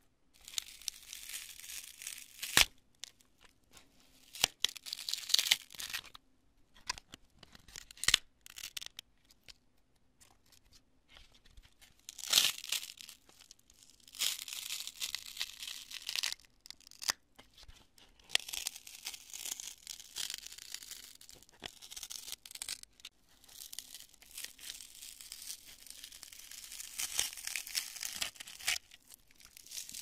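Hands squeezing and crushing cured construction foam: crisp, crunchy crackling in stretches of a few seconds with short pauses between, and a few sharp snaps.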